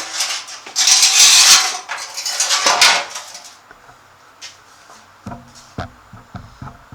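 Metal being handled: two loud bursts of scraping and rattling in the first three seconds, then a few sharp clanks and knocks near the end.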